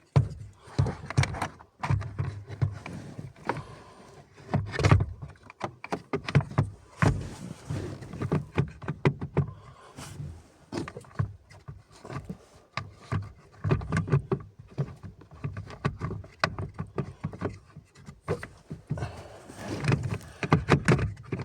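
Irregular knocks, clicks and scraping as a Lada Niva 21214 heater fan motor is worked by hand into its seats in the heater housing, until it goes in.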